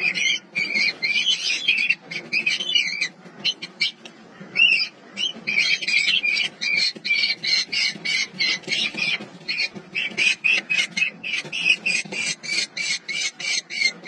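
Downy nestlings in a nest box giving harsh, rasping begging calls as an adult bird is with them. From about ten seconds in the calls settle into a fast string of short squawks, about three a second.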